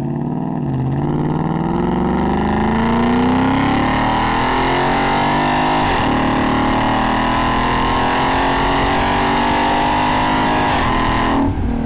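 Ford Mustang GT's 5.0-litre V8 through a Roush axle-back exhaust with hollow-chambered mufflers, heard at the tailpipe while driving. The engine pulls with rising pitch, dips briefly about six seconds in, climbs again, then drops off just before the end.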